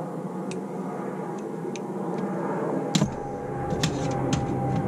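Small metallic clicks and taps from a screwdriver working on a 2002 Yamaha Grizzly's carburetor and its small parts, half a dozen in all, the sharpest about three seconds in. A steady hum with a constant tone runs underneath.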